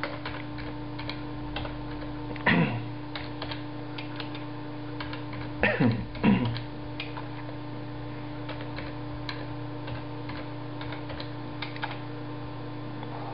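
Computer keyboard typing: a scattered run of key clicks as DOS commands are typed, over a steady hum from the PC. A few louder knocks stand out about two and a half and six seconds in.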